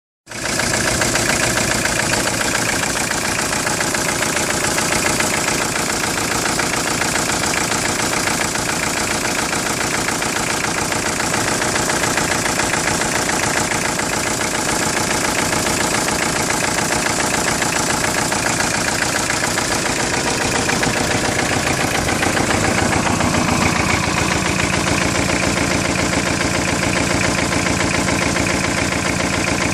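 Engine running at idle with a steady, rhythmic knock, an unidentified knock whose cause the owner is asking about. The running changes slightly about 22 seconds in.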